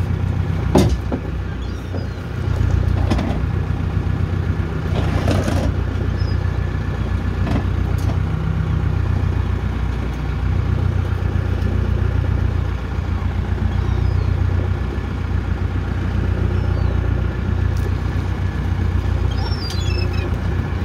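Fishing boat's engine running steadily with a low hum while octopus pots are hauled aboard. A few sharp knocks from the gear, and a short rush of noise about five seconds in.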